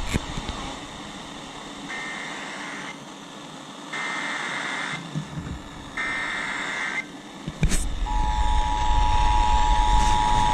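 Emergency Alert System header: three one-second bursts of buzzy data tones, about two seconds apart, over background hiss. About eight seconds in, the steady two-tone EAS attention signal starts.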